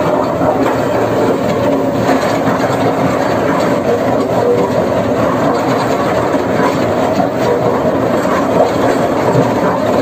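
Sany SR150C hydraulic rotary drilling rig running under load as its drilling bucket turns down into wet mud: a steady, dense machine noise with scattered rattling and clatter.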